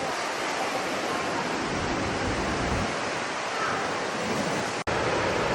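Steady rushing of ocean surf, broken off for an instant near the end.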